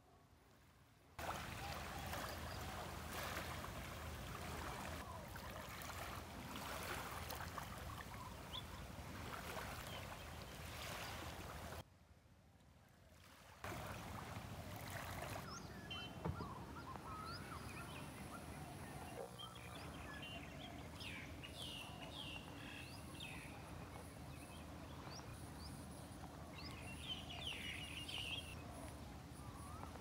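Faint outdoor ambience: a steady rush of water or wind, then, in the second half, birds chirping over a high, steady insect buzz. The sound drops to near silence twice, briefly, where the clips change.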